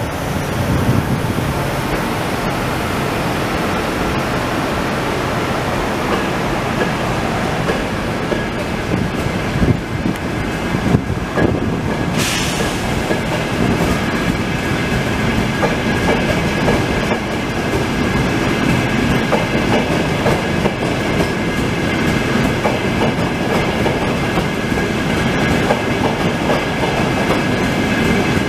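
Trenitalia Frecciarossa ETR 500 high-speed train rolling past at low speed, its wheels clicking over rail joints and points. A sharp clunk comes about halfway through, and a steady high whine joins the rumble from then on.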